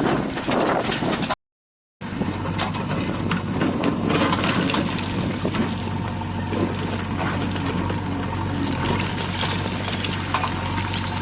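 Heavy diesel engine running steadily at a loading site, with scattered light knocks and rattles over it. The sound cuts out completely for about half a second around a second and a half in, then the engine hum resumes.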